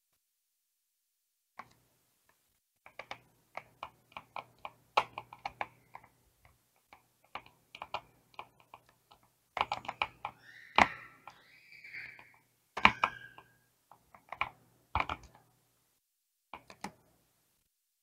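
Computer keyboard keys clicking in quick irregular runs during gameplay, with a louder flurry of clicks and a short wavering tone about ten to thirteen seconds in.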